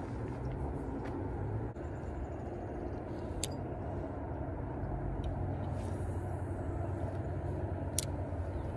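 Steady low outdoor rumble with two sharp clicks, one about three and a half seconds in and a louder one near the end.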